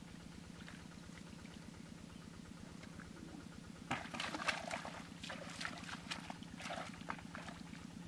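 Bare feet and hands squelching and splashing in the wet mud and shallow water of a flooded rice paddy: a cluster of irregular splashes and sucking sounds from about halfway through, over a steady low pulsing hum.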